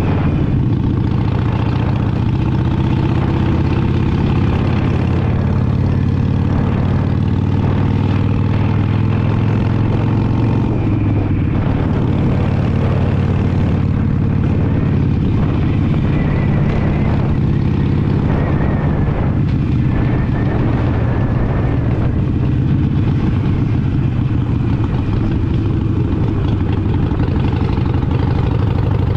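Harley-Davidson Sportster Iron 883's air-cooled V-twin engine running steadily under way, with wind noise over it.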